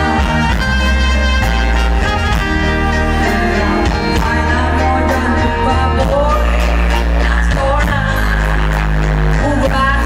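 Loud live band music: a woman sings lead over electric guitars, bass and a drum kit keeping a steady beat.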